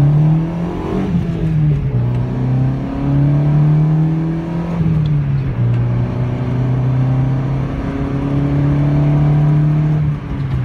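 1989 Acura Integra's four-cylinder engine accelerating hard through the gears, heard from inside the cabin: the pitch climbs in each gear and drops at upshifts about a second in, about five seconds in and near the end. It is revving to about 5,500 rpm with a subdued exhaust note through a newly fitted carbon fiber muffler.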